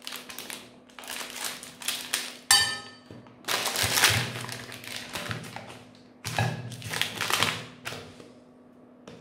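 Plastic ice cream bar wrappers crinkling and rustling as they are handled and pulled off, in several separate bursts. A short ringing clink sounds about two and a half seconds in.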